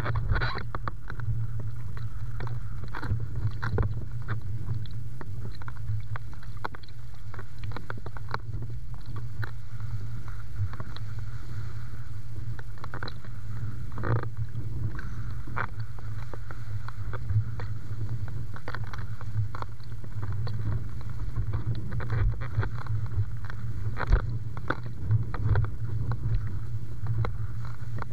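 Wind buffeting the microphone of a camera mounted on a windfoiling rig: a steady low rumble, with scattered short knocks.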